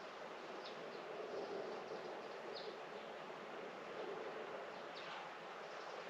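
Steady outdoor garden ambience, an even background hiss, with a few faint, short high chirps from small birds scattered through it.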